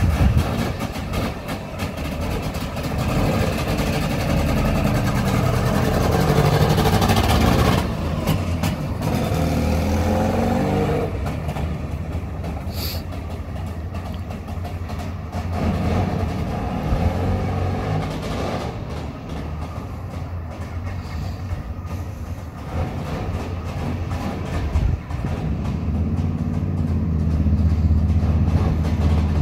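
A Trabant's two-stroke two-cylinder engine running as the small car drives off, its pitch rising and falling with the throttle in the first ten seconds, then fainter as it moves away and louder again near the end.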